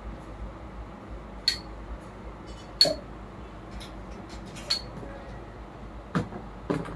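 Handling noise from a speargun with a spinning reel: scattered sharp clicks and knocks, about six of them, a second or so apart, the last two as the gun is laid down on the counter.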